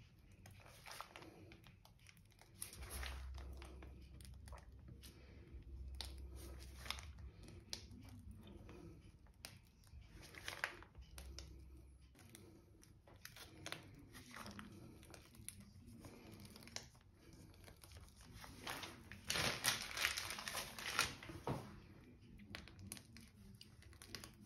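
Faint crinkling and rustling of a piping bag being handled and squeezed to pipe cream rosettes, with a louder spell of rustling near the end.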